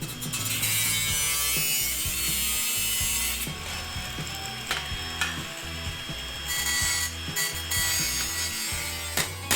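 Metalworking tool noise over background music. A loud hiss for the first few seconds is followed by scattered clicks and knocks.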